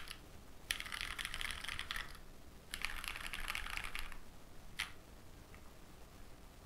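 Mechanical keyboard with Pewter light tactile switches on a full aluminum plate and GMK keycaps, typed in two quick rolls across the home row (asdfghjkl), each about a second and a half long. A single keystroke follows a little later.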